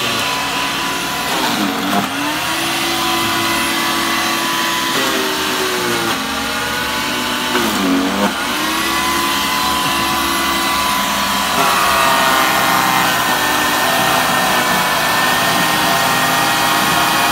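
Electric chipper-shredder running loud and steady while grinding whole bunker into chum. Its motor hum dips in pitch and recovers three times, about two, six and eight seconds in, as it takes the load of the fish, then runs steady and a little higher-pitched from about twelve seconds in.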